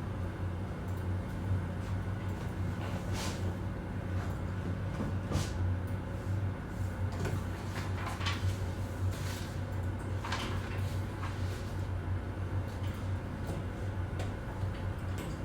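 Office ambience: a steady low hum with scattered light clicks and knocks, typical of office furniture and equipment being handled.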